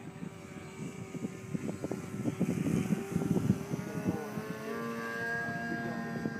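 Electric motor and propeller of a radio-controlled model airplane whining steadily in flight; the pitch steps up and a second, higher whine joins about four and a half seconds in. Gusty rumbles of wind buffet the microphone underneath, loudest in the middle.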